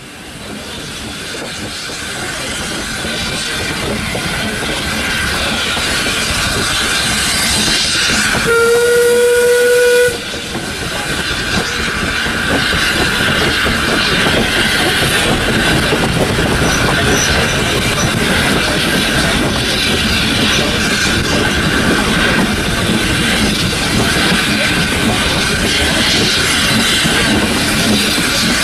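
Passenger coaches hauled by Austerity 0-6-0ST saddle-tank steam locomotive 71515, heard from the carriage, running along the track with steady wheel and rail noise that fades up over the first few seconds. About eight and a half seconds in, the locomotive's steam whistle sounds once, a steady tone lasting about a second and a half.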